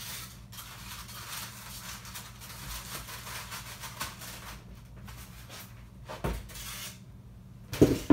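Handling noise while unpacking a boxed statue: faint rustling, a dull thud about six seconds in, then two sharp knocks near the end as a heavy piece is set down.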